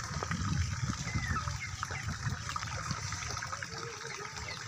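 Outdoor background of birds chirping in short, scattered calls over a steady low rumble.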